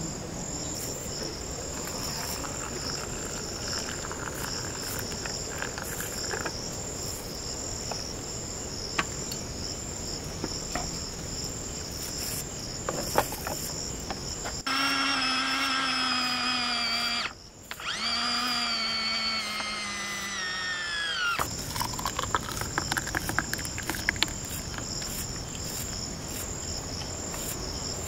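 Steady, high-pitched insect chorus in a forest, with faint scattered clicks. About halfway through it is replaced for several seconds by a louder steady pitched tone, broken once briefly and falling in pitch as it ends, before the insect chorus returns.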